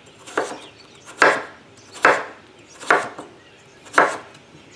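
Chef's knife slicing raw peeled pumpkin on a wooden cutting board: five cuts, about one a second, each a sharp chop as the blade goes through and meets the board.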